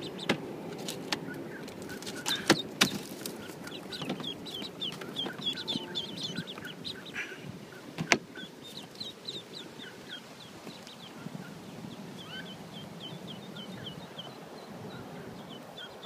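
Ducklings peeping rapidly and repeatedly from inside a plastic pet carrier. Several sharp clicks and knocks from the carrier being handled come in the first three seconds, and one more about eight seconds in.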